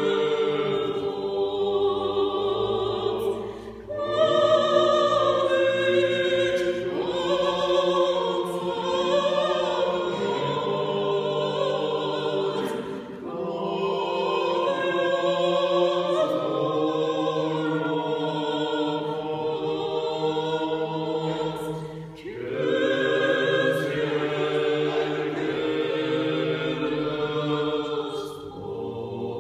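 A small mixed vocal ensemble of soprano, alto and tenors sings an Armenian church hymn unaccompanied, in sustained harmony. Phrases are separated by short breaks.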